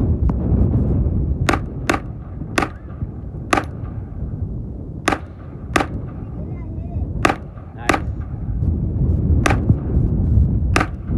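Glock 44 .22 LR pistol in a Micro Roni carbine chassis firing about ten shots at an uneven pace, often two in quick succession, with no stoppage. The magazine feeds through an aluminum adapter.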